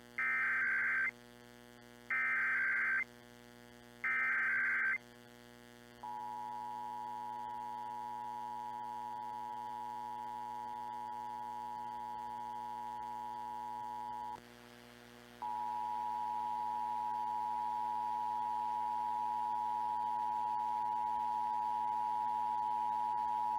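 Emergency Alert System SAME header: three one-second bursts of screechy data tones, then the EAS two-tone attention signal held for about eight seconds. After a one-second break the two-tone signal starts again, louder, and runs on. Together they open a Required Monthly Test.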